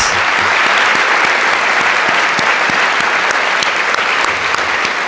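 Large audience applauding steadily, a dense clapping with a few single claps standing out.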